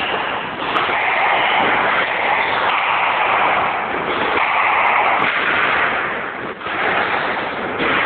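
Squash rally: the ball knocks sharply off the racket and the court walls, with the court's echo, all under a loud, steady rush of noise.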